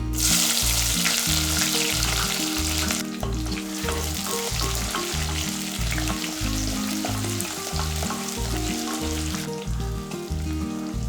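Ingredients sizzling and crackling in hot oil in a pan, loudest in the first few seconds and easing off near the end. Background music with a steady beat plays underneath.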